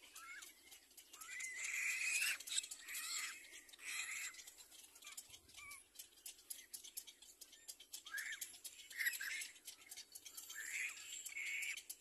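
Little black cormorant nestlings begging: repeated short calls, bunched in bouts during the first few seconds and again from about eight seconds in.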